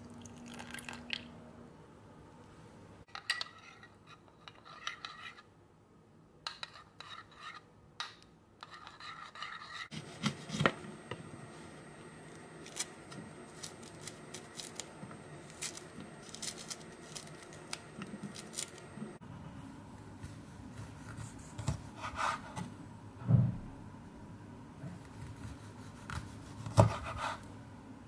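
Kitchen prep sounds without music: water poured onto gelatin in a ceramic ramekin, then a mandarin peeled by hand with rustling and tearing of the rind, and near the end a knife slicing the peeled mandarin on a wooden cutting board. A few sharp knocks stand out.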